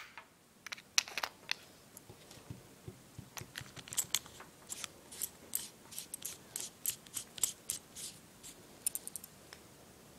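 A pen-style laser pointer being handled, giving a run of light clicks and scrapes. They are sparse at first, come closer together and more evenly through the middle, and stop about a second before the end.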